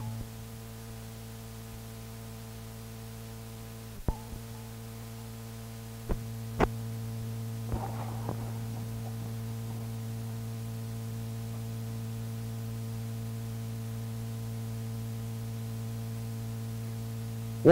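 Steady mains hum on an old reel-to-reel tape recording, broken by a sharp click about four seconds in, where the hum gets a little louder, and two smaller clicks a couple of seconds later, typical of the recorder being stopped and restarted between segments.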